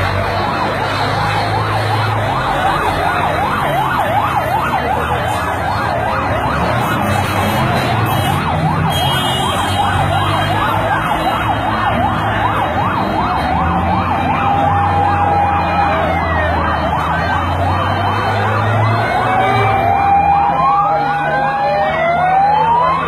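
Several emergency sirens sounding at once, overlapping and rapidly rising and falling. After the middle, long held siren tones and slow upward and downward glides stand out. A low vehicle-engine rumble runs underneath.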